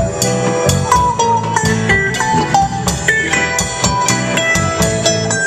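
Live band playing an instrumental break: a guitar lead over bass and drums keeping a steady beat.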